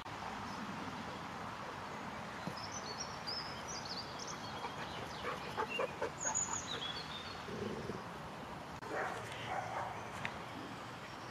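A dog sniffing at a ball in the grass, a run of short sniffs about halfway through, while birds chirp in the background over steady outdoor noise.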